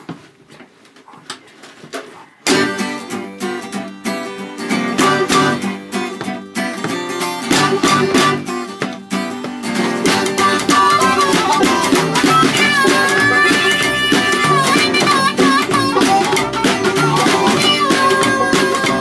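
An acoustic hillbilly band strikes up about two and a half seconds in: upright double bass, banjo and strummed acoustic guitar in a steady driving rhythm, with a drum struck by a stick. From about ten seconds in a harmonica plays held, wavering notes over the top.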